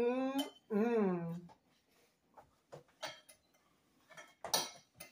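A voice draws out long sung-like notes for the first second and a half. After that, cutlery and plates clink lightly a handful of times as food is served.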